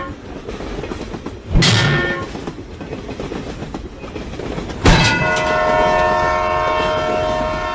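Train horn blasts over the noise of a running train: a short blast about one and a half seconds in, then a sudden long blast of several tones together, held for about three seconds.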